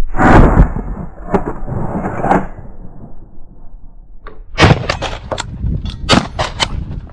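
Shotgun shots at steel targets, each a sharp report, with the high ring of struck steel plates after the first shots. A quick string of shots and hits comes in the second half.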